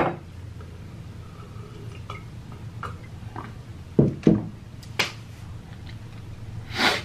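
Close-up mouth sounds of a man drinking from a glass of water: soft swallows and lip clicks, two low gulps about four seconds in, a sharp click a second later, and a breathy exhale near the end as he catches his breath.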